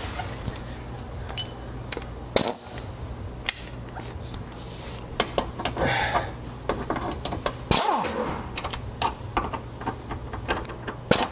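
Irregular metallic clicks, clinks and short scrapes of a hand tool with a long shaft working bolts into a car's rear suspension subframe, over a low steady hum.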